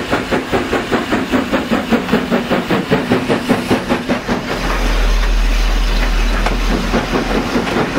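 Ex-LNER J94 (Austerity 0-6-0 saddle tank) steam locomotive working away under load, its exhaust beats coming in a quick, even rhythm. A little past halfway the beats give way to a steady low rumble as its carriages roll past close by.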